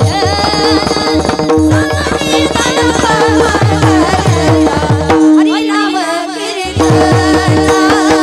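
Warkari abhang sung by women's voices over a steady veena drone, with small hand cymbals (taal) and a regular drum beat. The drum drops out for about a second and a half past the middle, leaving voices and drone, then comes back in.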